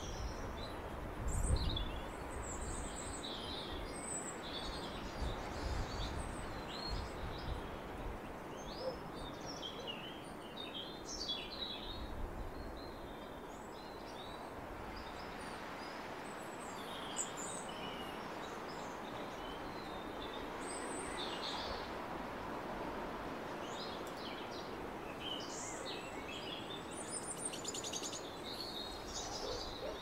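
Songbird singing high, thin, varied phrases and chirps, scattered short notes all the way through over a steady background hiss. A few low rumbles in the first eight seconds, the loudest about a second and a half in.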